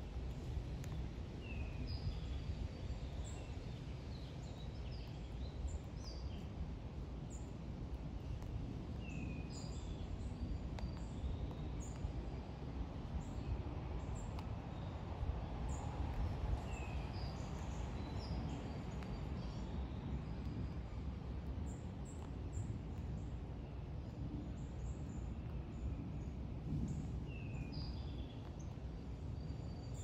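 Small songbirds giving short, falling chirps every few seconds over a steady low outdoor rumble.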